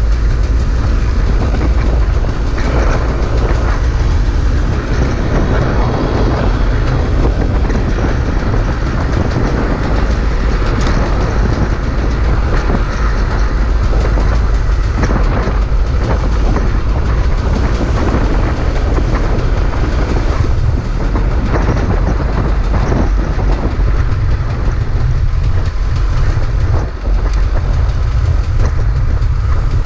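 2011 KTM 300 two-stroke enduro bike being ridden along a rough dirt trail: the engine running under a heavy low rumble, with knocks and rattles from the ground throughout.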